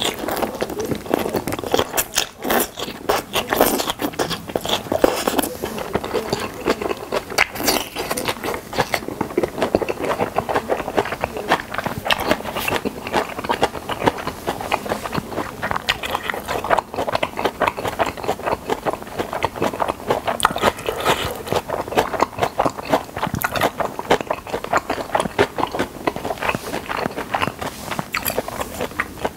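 Close-miked chewing of a large mouthful of food, with many quick wet clicks and crunches from the mouth. The mouthful includes fresh green sprouts, eaten alongside kimchi-cheese sweet-and-sour pork.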